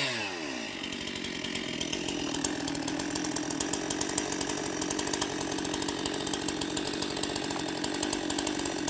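Chainsaw dropping in pitch in the first half second, then running at a steady speed while felling a tree.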